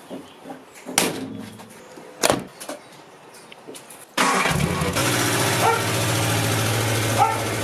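A couple of sharp knocks, then about four seconds in a car engine comes in loud and runs steadily.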